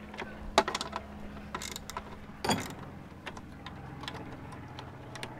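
Socket ratchet clicking as the small 10 mm bolts of a plastic engine cover are driven in, with a few louder clacks of the tool and cover.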